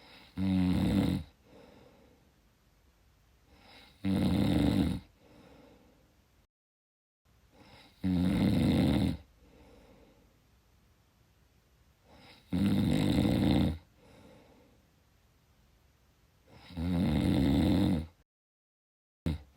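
A person snoring: five loud snores about four seconds apart, each lasting about a second, with faint breathing between them. The sound cuts to dead silence twice for under a second, and a sixth snore starts right at the end.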